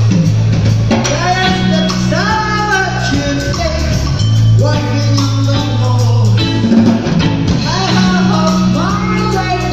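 Live rock band playing: electric bass holding low notes under a drum kit, with a bending melodic line over the top.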